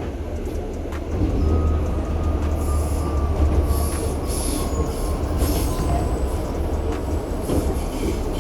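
New York City subway train running, heard from inside the car: a heavy low rumble that grows louder about a second in, with high-pitched wheel squeals in the middle.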